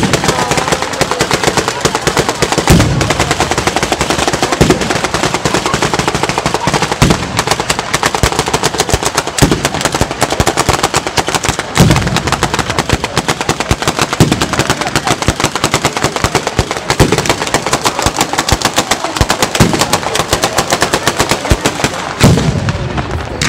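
Batteria bolognese, a ground-level firework battery of firecracker chains going off: a continuous rapid volley of sharp bangs, with a heavier deep boom about every two to three seconds.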